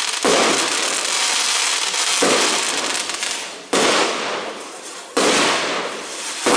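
Aerial firework shells bursting in quick succession, a sudden bang about every one and a half seconds, each trailing off in a long noisy wash before the next.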